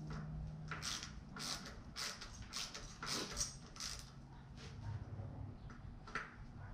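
Rotor bolts being turned into a mountain bike's disc brake rotor with a hand-held T25 Torx bit driver: a run of short scraping strokes about twice a second, thinning out after about four seconds.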